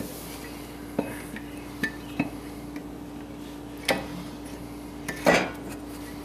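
A cast flywheel being turned and worked down onto a Kawasaki V-twin mower engine's crankshaft, giving a handful of sharp metallic clinks and knocks as it is lined up with the key groove; the loudest comes about five seconds in. A faint steady hum runs underneath.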